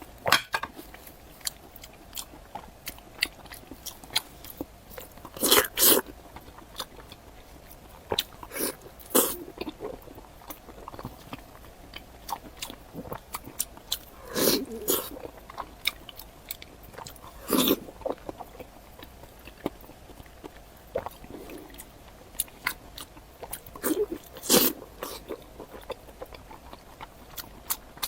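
Close-miked chewing and biting into a large chunk of meat: irregular wet mouth clicks, with a handful of louder bites scattered through.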